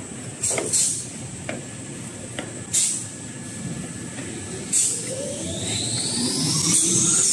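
Tissue-roll production line running: steady machine noise with a high constant tone, broken by short hisses of air about every two seconds. Over the last few seconds a motor whine rises steadily in pitch.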